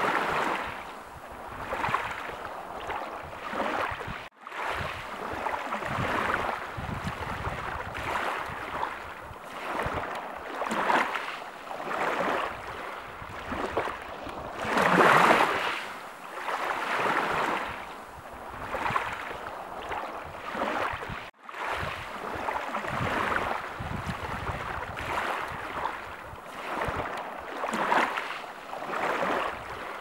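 Small waves washing in and out on a pebble beach: a rushing hiss that swells and falls every couple of seconds, with one larger wash about halfway through. The sound cuts out for an instant twice.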